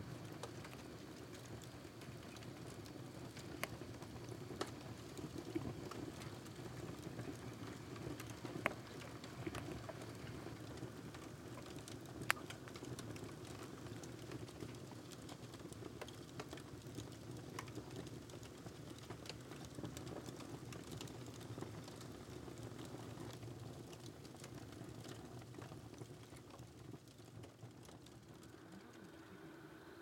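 Firewood burning in a homemade camping wood stove: a steady low rush of flame with scattered sharp crackles and pops, the loudest pop about twelve seconds in.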